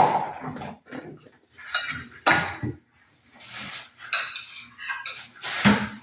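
Stainless steel meal trays and lids clattering as they are unpacked from an insulated delivery bag: a handful of separate clanks and scrapes, with bag rustling between them.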